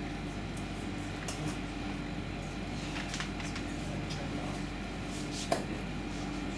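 Steady low machine hum with a few light clinks of a utensil against a steel stockpot, the sharpest about five and a half seconds in.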